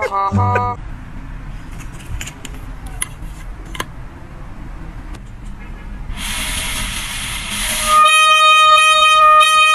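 A plastic toy horn with a soccer-ball mouthpiece, held at a golden retriever's mouth, gives a breathy rush of air and then, about eight seconds in, a loud steady honk held for nearly three seconds. A short pitched sound cuts off at the very start.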